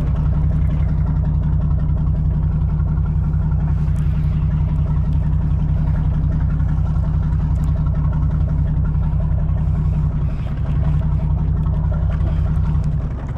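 Boat engine running steadily with a low drone, dipping briefly about ten seconds in.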